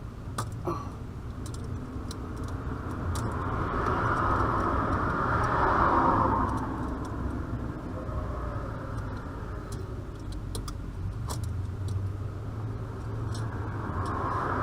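A vehicle passing on a road, its sound swelling and fading over a few seconds, with another approaching near the end. Light metallic clicks and clinks, like tools, are heard throughout.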